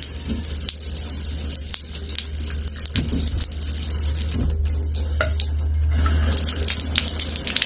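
Bathtub faucet running steadily, turned up a little, to test the flow through a tub and shower drum trap, with a steady low rumble underneath.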